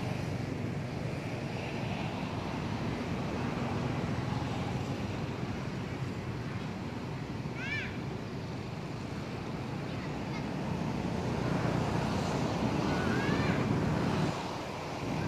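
Steady low outdoor rumble, with two short high chirping calls, one about eight seconds in and another near thirteen seconds.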